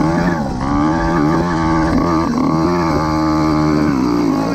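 Small petrol engine of a motorised bicycle running under load, its pitch rising and falling over and over as the throttle is worked, with wind buffeting the microphone.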